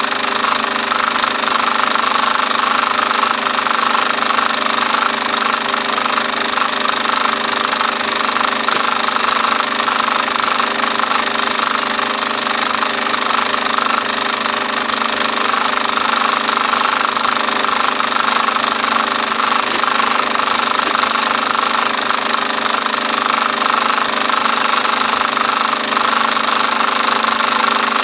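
Film projector running: a steady mechanical clatter and whir.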